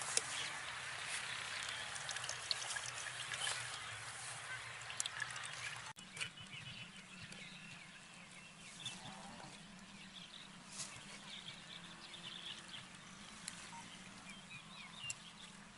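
Metal spoon clinking and scraping against a steel strainer as watermelon flesh is pressed through it, in short repeated clicks, with animal calls in the background. The sound drops quieter about six seconds in.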